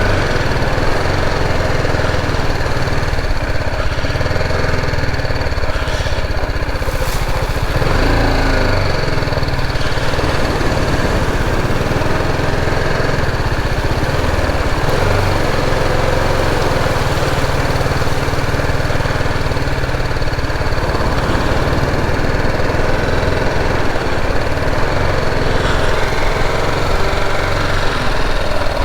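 Motorcycle engine running steadily as the bike is ridden across the beach.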